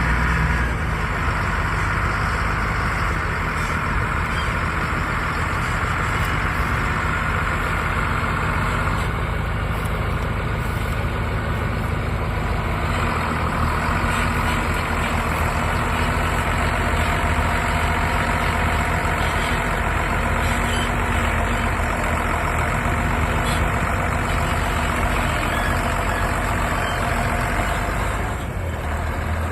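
Heavy diesel harvest machinery running steadily: a combine harvester and track tractor at work in a wheat field.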